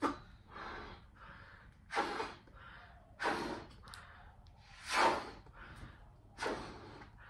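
A woman blowing up a latex party balloon by mouth: about five strong breaths, roughly one every second and a half, with quieter breaths between them.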